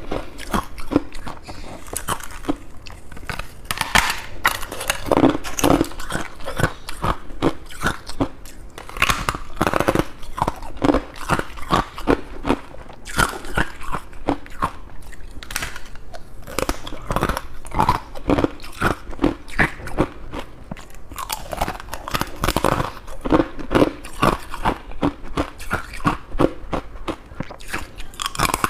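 Freezer frost being bitten and chewed, crunching in quick, crackly clusters.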